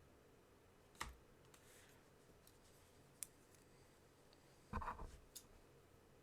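Packaging box being handled: a few scattered clicks and taps with a short cluster of knocks and rustling a little before the end.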